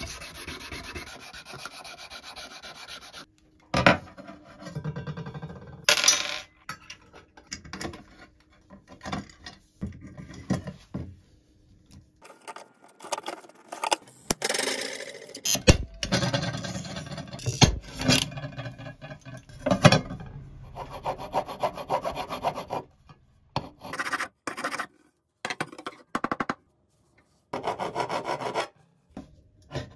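Hand work on a steel shovel blade. It opens with steady sanding that stops after about three seconds, then a series of sharp snaps and clicks, fitting a hand pop-riveter setting rivets. Near the end come short bursts of even rubbing strokes from a flat bar worked across the metal.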